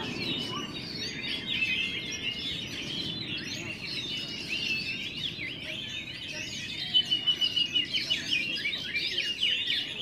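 Many caged oriental magpie-robins (kacer) singing at once in competition, a dense chorus of overlapping whistles, trills and chattering notes. About seven seconds in, one bird bursts into a loud run of quickly repeated notes, over a low murmur of the crowd.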